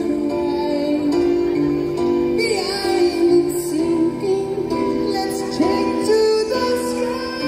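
Music with a singing voice, played as a soundtrack.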